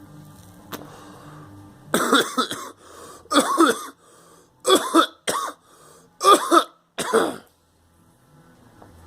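A person coughing, about six coughs over roughly five seconds starting about two seconds in, some in quick pairs, each with a rough voiced tone.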